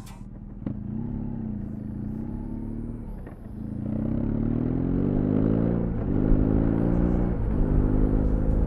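BMW R1200 GS boxer-twin engine and exhaust, the revs rising and falling gently at first, then pulling hard with the pitch climbing through the gears. There are two upshifts, about six and seven and a half seconds in, where the pitch drops and climbs again.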